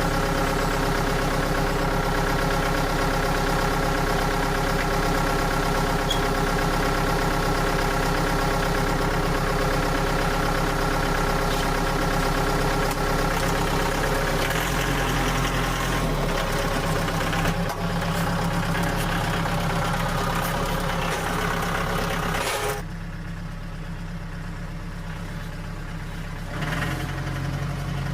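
An engine idling steadily. About two-thirds of the way through, the sound drops suddenly to a duller, quieter run, then picks up again near the end.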